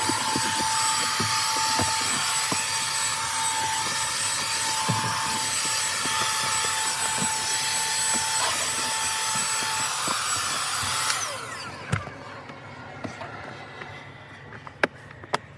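Vacuum cleaner running with a steady high whine. It is switched off about eleven seconds in and winds down, and a few knocks follow.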